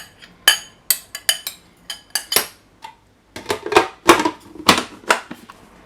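A series of sharp clinks and knocks from kitchen utensils against a food processor bowl as the remaining raw shrimp are added, scattered at first and coming thicker about halfway through.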